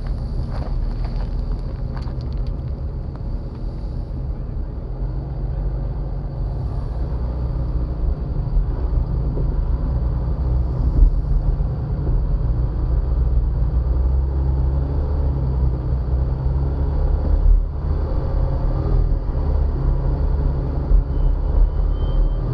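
Jeep Wrangler engine running at low speed while crawling a rocky trail, a steady low rumble whose pitch shifts with the throttle, picked up close from on top of the hood. A few sharp knocks in the first couple of seconds.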